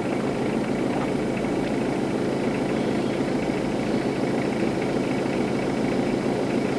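Vehicle engine idling steadily: an even low hum under a constant hiss.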